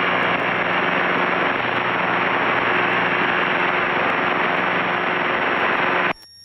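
Light aircraft engine and propeller noise carried through an open microphone into the cockpit audio system: a steady, loud hiss with a low engine hum underneath. It cuts off abruptly about six seconds in, as the microphone channel closes.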